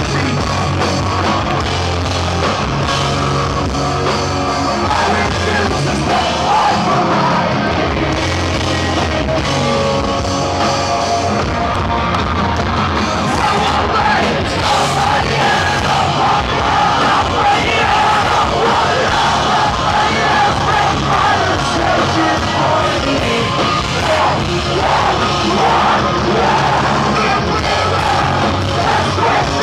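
Live rock band playing loud through a club PA, with singing and yelled vocals, heard from within the crowd.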